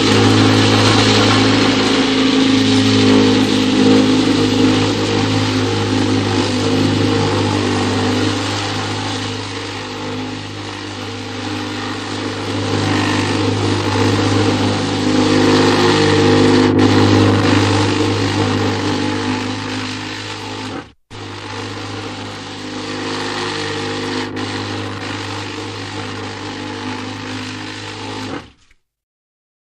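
Chainsaw engine running, its level swelling and easing as it goes. It breaks off for an instant about two-thirds of the way through, then stops abruptly near the end.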